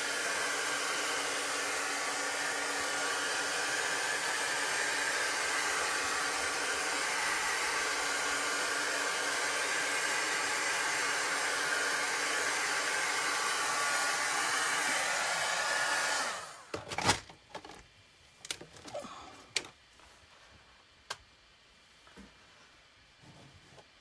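Handheld craft heat gun blowing steadily as it dries wet chalk paste, then switched off abruptly about sixteen seconds in. A few sharp knocks and clicks follow.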